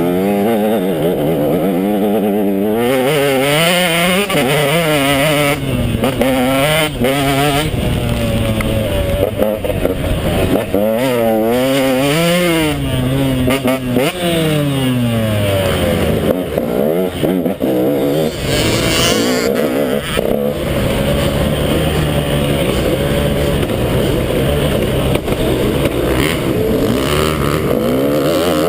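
KTM 150 XC two-stroke dirt bike engine being ridden hard, revving up and dropping back again and again for the first half. It then settles into a steadier, lower pitch near the end.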